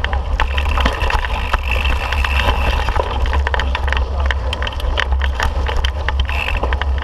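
Mountain bike rolling fast over rocky trail, with wind buffeting the microphone as a heavy low rumble, and frequent quick clicks and rattles from the bike jolting over rocks. A thin high tone comes in briefly twice.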